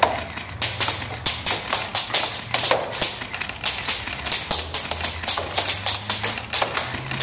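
Airsoft guns firing: many sharp, irregular snapping shots, several a second, some in quick runs.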